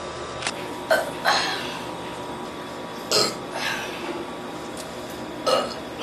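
A woman burping in a series of short, separate burps, about four of them spread across the few seconds.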